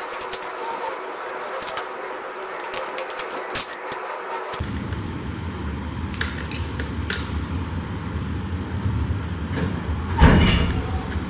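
Light clicks and taps from a small screwdriver and from the plastic and metal parts of RC landing gear and servos being handled. About four and a half seconds in, a steady low rumble comes in, and a louder knock sounds near the end.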